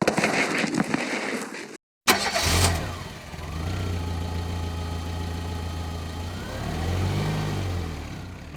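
A stretch of noise cut off by a moment of silence, then an engine starting with a burst and running steadily with a low hum. Its pitch rises and falls once near the end, like a brief rev.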